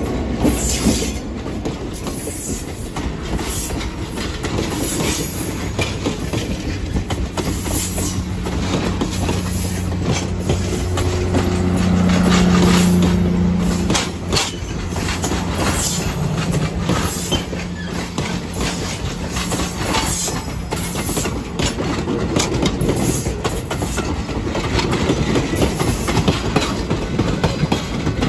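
Passenger coaches of an excursion train rolling past close by: wheels clacking over the rail joints, with brief squeals. A low hum swells about halfway through.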